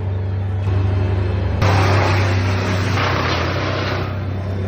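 Engine running steadily at a constant speed. A harsh, noisy rush rides on top of it for about two and a half seconds in the middle, then drops away.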